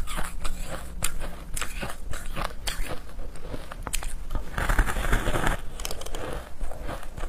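Close-up crunching of a ball of frozen shaved ice being bitten and chewed. It is a run of sharp cracks, with a denser, louder crunching bite about five seconds in.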